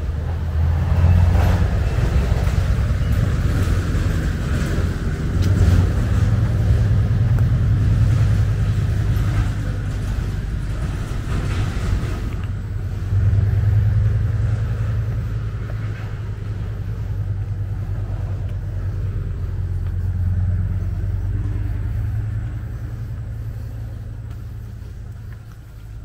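Low, steady rumble of a motor vehicle engine running, fading over the last few seconds.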